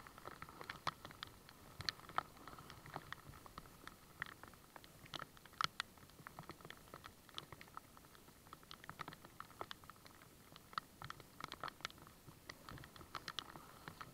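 Rain and water drops pattering on the kayak and the camera: irregular sharp ticks, several a second, over a faint steady hiss.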